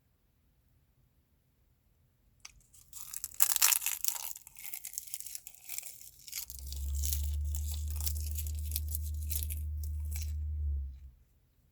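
Close-up crackling, crinkling crunches start a few seconds in, loudest early on, either crunchy food being chewed or a packet being torn. A steady low hum joins about halfway through and cuts off shortly before the end.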